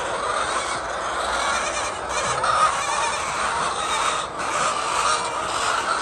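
A large flock of chickens calling all at once, a continuous dense chatter with no pauses.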